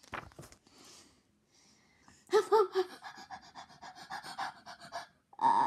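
A person's voice acting out fast, exaggerated panting, a quick run of short huffs lasting about three seconds, performing the comic's "huff puff huff" sound effect. A short, louder vocal sound follows near the end.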